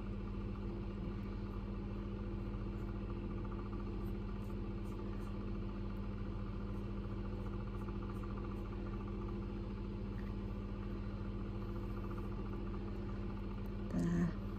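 Steady low electrical hum made of several constant tones, with a few faint light ticks over it.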